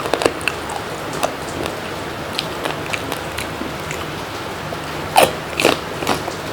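Close-miked eating: a person chewing and biting food, with small wet clicks throughout and three louder sharp mouth sounds near the end.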